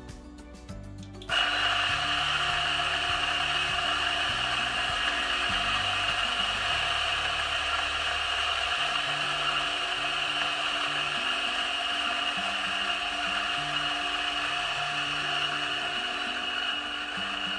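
DF64 flat-burr coffee grinder switched on about a second in, its motor whining steadily as it grinds a single 18 g dose of espresso beans, running for about sixteen seconds until the chute empties.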